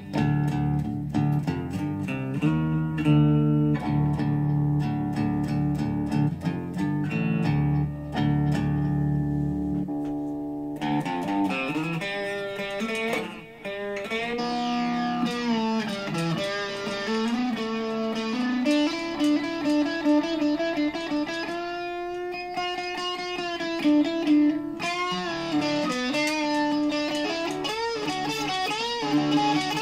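Gibson Les Paul electric guitar played through a Digitech RP55 multi-effects processor: chords for about the first ten seconds, then a single-note lead line with string bends and vibrato on the held notes.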